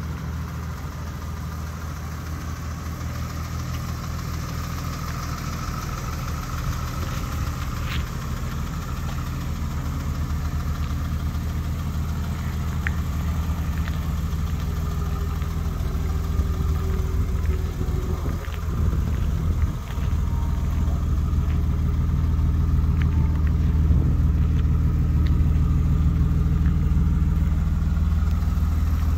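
BMW E30 325i's 2.5-litre straight-six engine idling steadily, slowly growing louder.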